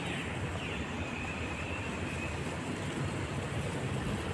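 Steady outdoor city background noise, heaviest in the low range, with a few faint high whistling tones that slide down near the start and one held for about a second.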